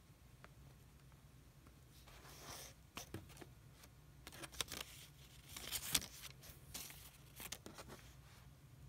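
Faint handling noises: fingers rubbing and flicking a plush toy's paper tag and fur, with scattered light scrapes and clicks from about two seconds in.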